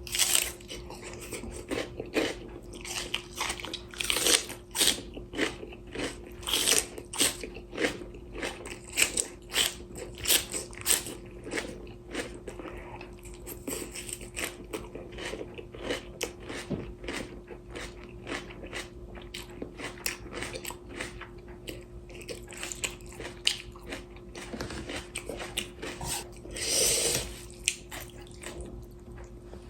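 Close-up eating sounds: crisp, irregular crunching bites and chewing of fresh cabbage kimchi, with a longer noisy sound near the end. A faint steady hum runs underneath.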